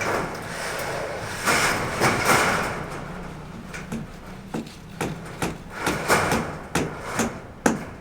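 Construction work: two short scraping, rushing noises, then a run of sharp knocks, roughly two a second and irregular, over a low steady hum.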